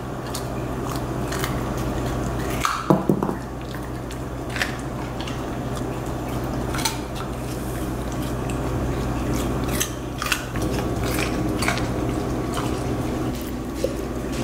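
Scattered light clicks and crunches over a steady low hum, with a louder clatter about three seconds in.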